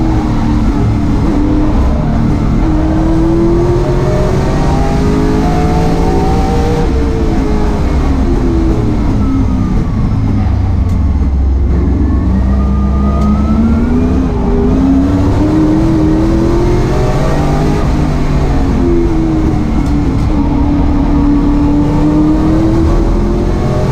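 Holden Commodore saloon race car's engine heard from inside the cockpit, loud under hard driving. The revs climb and fall repeatedly, dropping low about eleven seconds in before climbing again.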